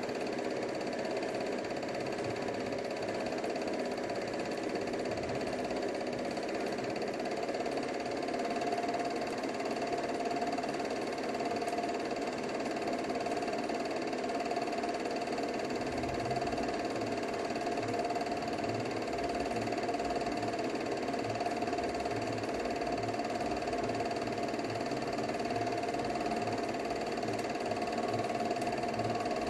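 Steady mechanical whirring and clatter, typical of an 8mm cine projector running while the film is played. A low, regular pulsing joins about halfway through.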